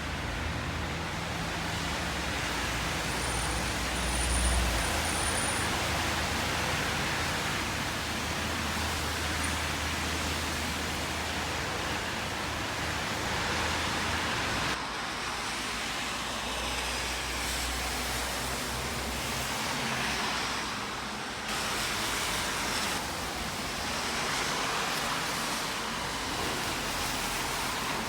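Steady rush of road traffic with a low rumble of passing vehicles, shifting abruptly twice partway through.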